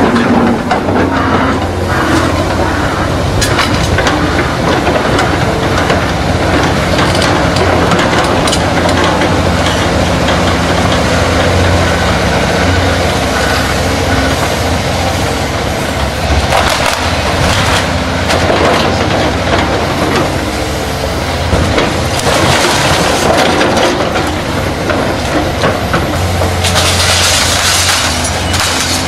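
Komatsu PC490LC hydraulic excavator's diesel engine running steadily while its demolition grapple tears at a brick wall: bricks and rubble crack and clatter down onto the debris pile, with several louder spells of falling masonry in the second half.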